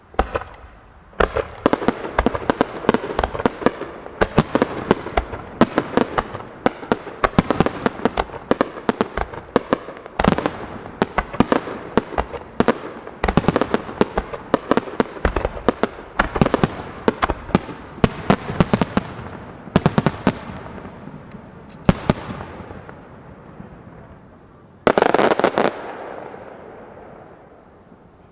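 Aerial fireworks shells bursting one after another in a dense barrage: sharp bangs with crackling between them. The barrage thins out near the end, then one last loud burst.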